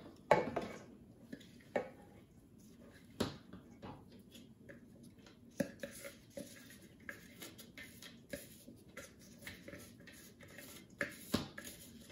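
Scattered light clicks and knocks from a food processor's clear plastic work bowl and shredding disc being lifted off and emptied of shredded carrot into a steel mixing bowl, with hand-scraping.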